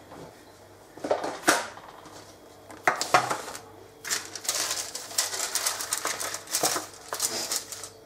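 Microwave oven running with a low hum while the butter-and-sugar fudge mixture boils inside, crackling and popping. There are bursts about a second in and about three seconds in, then a dense run of crackles over the last four seconds.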